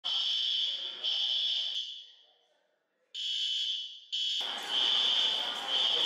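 Building fire alarm sounding: a high-pitched electronic tone in long pulses of about a second each. It drops out for about a second near the middle, then comes back and keeps sounding over rougher background noise from about four seconds in.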